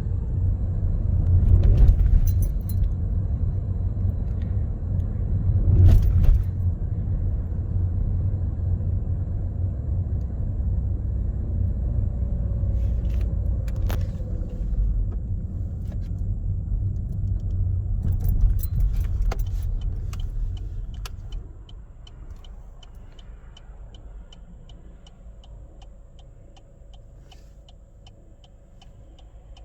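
A car's engine running as a low rumble, with several knocks and rattles of handling. About two-thirds of the way through the rumble drops away, and a steady ticking at about two a second remains.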